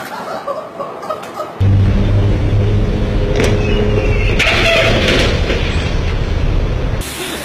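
Motorcycle engine idling close to the microphone, a steady low drum that starts suddenly about a second and a half in, with city traffic around it. A short hiss comes about four and a half seconds in.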